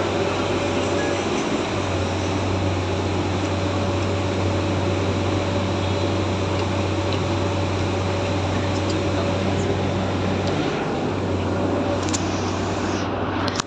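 A steady motor hum with a constant low drone and a thin steady tone above it, the drone dipping briefly twice.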